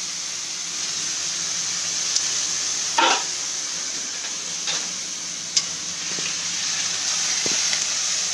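Short-grain kolam rice sizzling steadily as it fries in a hot wok in the cumin tempering. A few sharp metal clinks from utensils against the pan come through, the loudest about three seconds in.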